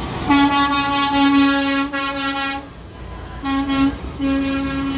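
Semi-truck hauler's air horn blowing three steady blasts: one long blast of about two seconds, a short toot, then another blast near the end, over the low rumble of the passing truck.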